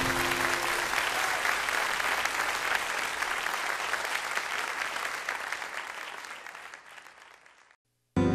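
Church congregation applauding, with the band's last held note dying away in the first half-second. The applause fades steadily to silence, and new music starts right at the end.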